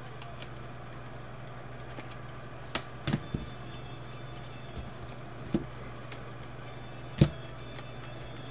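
Trading cards and plastic card sleeves being handled and flipped through, with a few short clicks and taps, the loudest a little past the middle. A steady low fan hum runs underneath.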